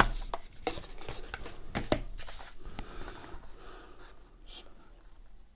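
Hands handling a small cardboard box and a paper leaflet: a run of small clicks and rustles over the first two seconds, then fainter handling noises.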